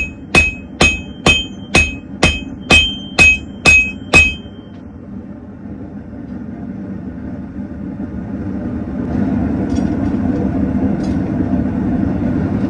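Hammer blows on hot steel over an anvil: about ten sharp, ringing strikes at roughly two a second, stopping about four seconds in. A steady low rushing noise follows and grows louder about nine seconds in.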